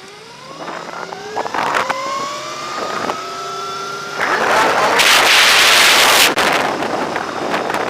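Throne SRPNT electric motorcycle's motor whining, rising in pitch as the bike accelerates from a stop and then levelling off. From about four seconds in, a loud rush of wind buffeting the microphone takes over.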